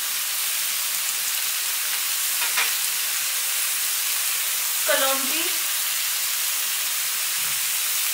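Diced pumpkin frying in hot oil in a kadhai, a steady sizzle.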